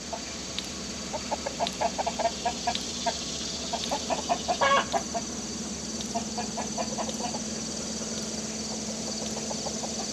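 Chickens clucking: runs of short clucks in bursts every second or two, the loudest about four and a half seconds in, trailing off in the last few seconds.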